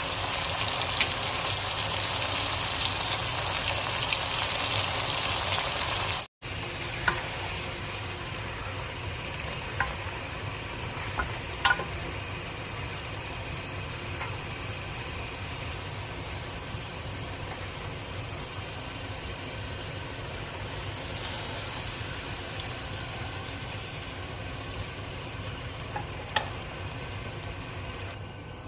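Cauliflower-and-meat curry frying in a pot with a steady sizzle and a few sharp clicks of a stirring utensil. The sizzle is louder for about the first six seconds, breaks off briefly, then continues more quietly.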